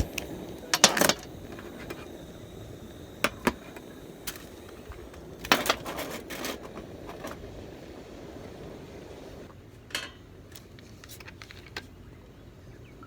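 Camp cooking gear being handled: a run of light clinks and knocks, with clusters of clatter about a second in, around five to six seconds, and once more near ten seconds.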